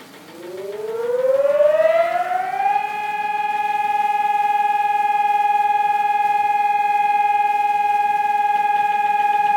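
Public seismic-alert siren, the earthquake warning signal, starting up. It climbs in pitch for about two and a half seconds, then holds a loud, steady tone.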